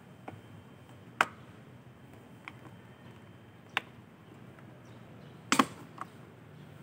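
A few sharp clicks and knocks at irregular intervals, the loudest about a second in and a quick double knock near the end, over a faint low hum.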